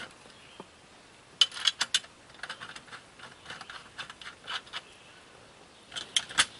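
Small metal exhaust hardware clicking and clinking in quick light clusters as chrome exhaust pipes are fitted together by hand, with one sharper click about a second and a half in.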